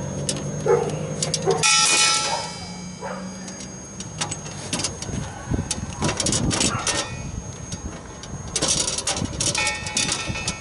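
Compressed gas hissing from a cylinder hose through a regulator, with a whistling edge, loudest about two seconds in and again briefly near the end. Sharp clicks and metallic knocks from hose and tool handling come in between.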